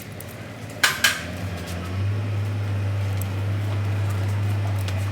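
Two sharp metallic clinks of steel gearbox parts knocked together, then a steady low machine hum that starts and holds.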